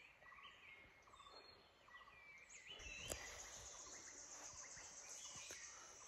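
Faint forest ambience: small bird chirps in the first half, then a steady high-pitched insect drone that sets in about three seconds in, with one short click at about the same moment.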